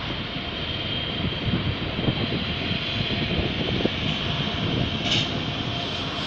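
A train moving through the station: a steady rushing rumble with a high, even hum above it, and a brief brighter hiss about five seconds in.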